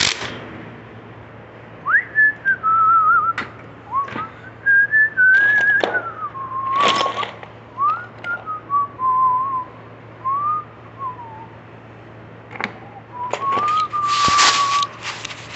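A person whistling a wandering tune in short phrases, with scattered clanks and rattles of tools in between; the loudest clatter comes near the end.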